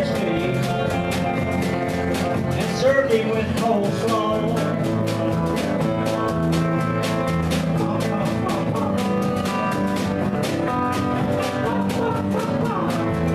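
Live country band music: electric bass and strummed acoustic guitar over a steady beat, with a voice singing in the first few seconds.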